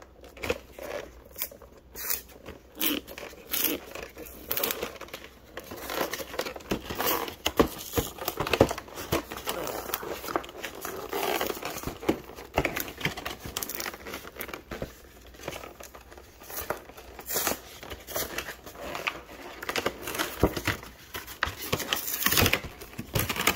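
Cardboard trading-card collection box being opened by hand: irregular crinkling, tearing and scraping of cardboard and packaging, with frequent small clicks and knocks.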